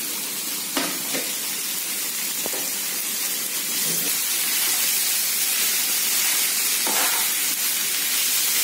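Vegetable stuffing of carrot, capsicum and peas sizzling in a nonstick frying pan, a steady hiss, while mashed potato is stirred in. A steel spatula knocks and scrapes against the pan a few times.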